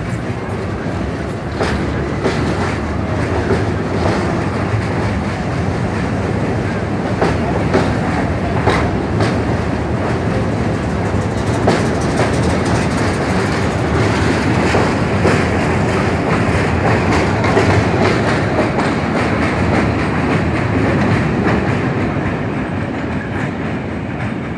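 A century-old BMT Standard and Triplex D-type subway train departing: steady rumble of the cars rolling past with repeated clicks as the wheels cross rail joints, easing off near the end as the train draws away.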